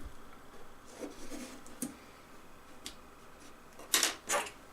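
A pry tool scraping and clicking against a tablet's battery and frame while it is worked around the edges to free the battery from its adhesive, with a few small ticks and two sharper clicks about four seconds in.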